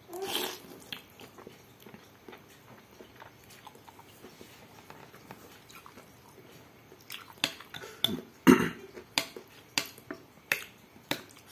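Slurping instant noodle soup at the start, then quiet chewing. From about seven seconds in comes a run of sharp clinks as a metal spoon knocks and scrapes in a glass bowl of noodles. The loudest clink is about eight and a half seconds in.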